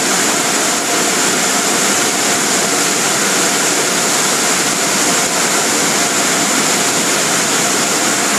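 Tunnel car wash blower dryers running: a loud, steady rush of air with a constant high whine.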